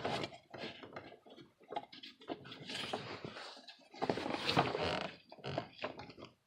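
Irregular clicks, knocks and scraping of hands and tools working on parts in a car's engine bay, where the alternator and its wiring connector are being removed. Longer scraping stretches come near the start, about halfway through and again about two-thirds of the way through.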